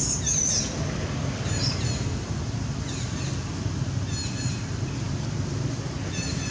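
High-pitched, wavering animal squeals in the first half-second, then a few short chirps later on, over a steady low background rumble.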